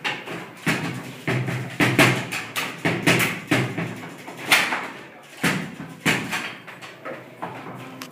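Table football game in play: an irregular series of sharp knocks and clacks, about two a second, from the ball being struck by the players on the rods and hitting the table.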